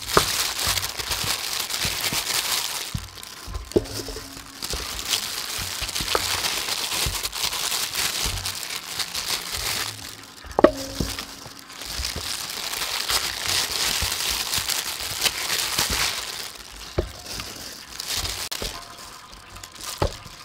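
Disposable plastic gloves crinkling and flour rustling as chicken legs are tossed and pressed in a metal tray of flour. It comes in long stretches with short lulls, with a few sharp knocks.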